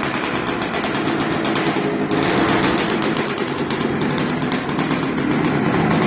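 Puch Maxi moped's tuned 72cc Airsal single-cylinder two-stroke engine with a Proma expansion exhaust idling, running with a rapid, uneven popping.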